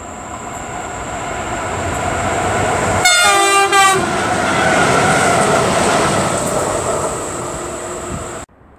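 Freight train hauled by two electric locomotives approaching and passing close by, its running noise growing steadily louder. About three seconds in, the lead locomotive sounds its horn in two short blasts, each a chord of several notes. The sound cuts off suddenly near the end.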